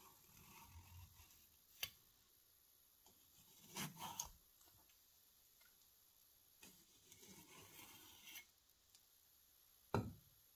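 Steel cleaver slicing thin pieces off a fruit on a wooden board: soft cuts, with sharp clicks of the blade striking the board about two seconds and four seconds in, and a louder knock on the wood near the end.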